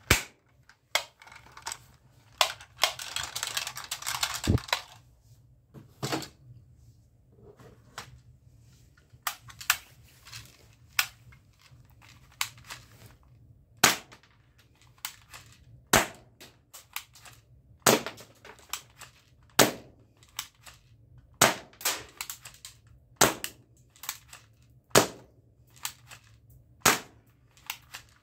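Spring-powered toy pellet pistol being cocked and fired again and again: sharp single snaps, coming about every two seconds in the second half, with smaller plastic clicks from cocking between them. A few seconds in there is a clattering stretch of about two seconds.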